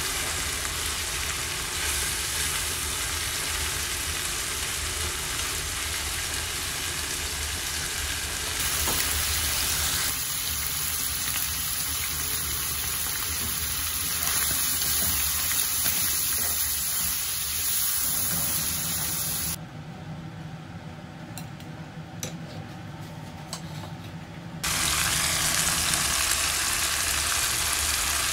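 Chicken strips and vegetables sizzling as they stir-fry in oil in a nonstick pan. The sizzle changes abruptly at several cuts between clips and drops quieter for about five seconds about two-thirds through.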